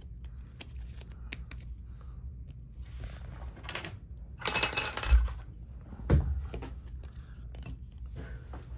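Trading cards and pack wrappers being handled on a table: light clicks and rustling, a louder rustle about halfway through, and two dull thumps as things are set down.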